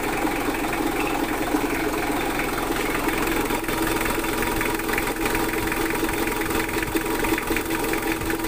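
Mitsubishi Adventure engine idling steadily, left running for ten minutes after a radiator repair to bleed air pockets out of the freshly refilled cooling system.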